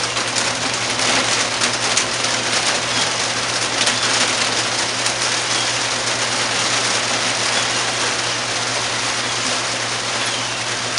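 Heavy rain falling steadily on a roof: a dense, even hiss with fine patter, over a steady low hum.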